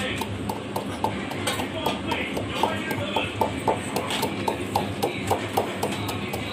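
Rhythmic clicks with short squeaks, about four a second, as a hand works a small round knob up and down at the cooking stove, over a low steady hum.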